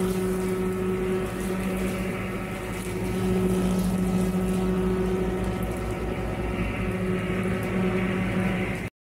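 Massey Ferguson 4707 tractor engine and its front-mounted Baumalight CP572 brush cutter running steadily under load while mulching brush, with a constant hum and a brief sag in level early on before recovering. The sound cuts off abruptly near the end.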